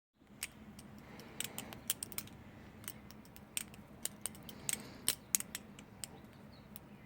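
Balisong being flipped: its handles and blade clack and click against each other in quick, irregular strikes, some in pairs and short runs.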